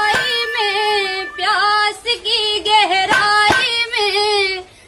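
A woman singing high, wavering held notes in short phrases of about a second each, with no instruments clearly heard.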